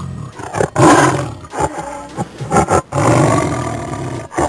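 Tiger roaring and growling: a string of rough roars, with a longer one near the end.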